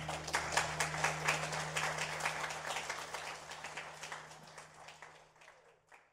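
Congregation applauding, the clapping growing steadily quieter and dying away near the end, over a low steady hum.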